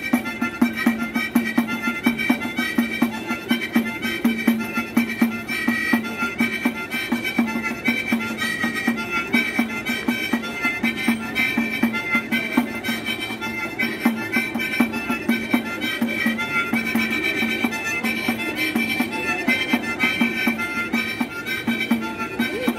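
Harmonica melody with a pandeiro (Brazilian frame tambourine) beaten alongside it in a fast, steady rhythm of jingles, both played by one musician.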